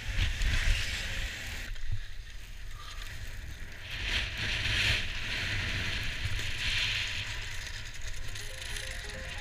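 Wind buffeting an action camera's microphone as a skier runs down a groomed slope, with the hiss of skis sliding over packed snow swelling twice. The sound changes abruptly about two seconds in.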